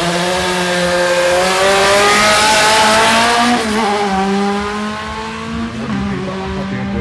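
Volkswagen Gol drag car launching and accelerating hard, engine revs climbing. A gear change about three and a half seconds in drops the pitch, then it climbs again.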